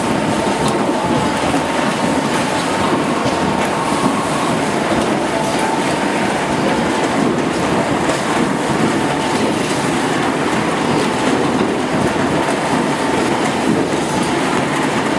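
Rotary die cutting machine for corrugated board running steadily with its chain feeder, a dense continuous mechanical clatter with a faint steady whine underneath.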